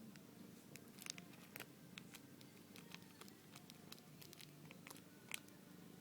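Scottish Fold cat purring softly and steadily, with scattered light clicks and taps, the sharpest about a second in and near the end.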